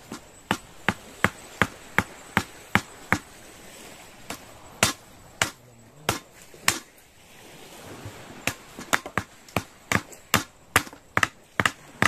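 A series of sharp knocks or strikes in quick succession, about three a second. They come in two runs, with a few scattered strikes and a short pause between them.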